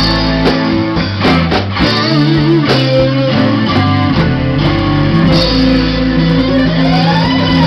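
Live rock band playing amplified: electric guitars, electric bass and drums, with regular drum strokes under sustained guitar chords. From about five seconds in, a long note slides steadily upward in pitch and turns back down near the end.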